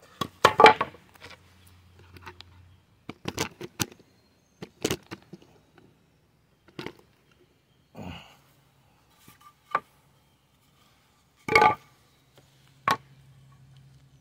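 Wooden 1x4 boards knocking and clattering as they are handled, set down and shifted on the ground: scattered sharp knocks at irregular intervals, with one short scrape. The loudest knocks come about half a second in and again late on.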